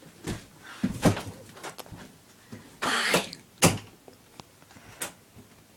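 A person coughing and clearing their throat, several short separate bursts over a few seconds.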